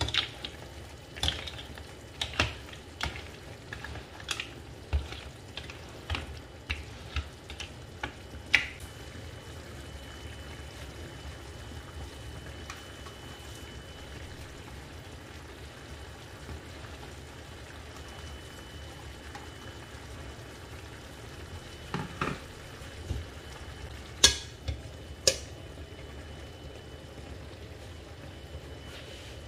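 Mussels cooking in a wok, with a spatula repeatedly scraping and knocking against the pan for the first several seconds. The pan then sizzles steadily, and a few knocks come near the end.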